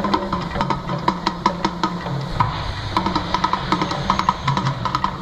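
Percussion-driven show music: rapid, irregular drum hits over a low steady drone, accompanying a fire-and-fountain volcano eruption.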